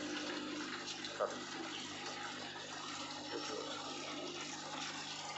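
Steady running and trickling water from a home-made deep-flow hydroponic system, its nutrient water flowing through the PVC channels, over a low steady hum.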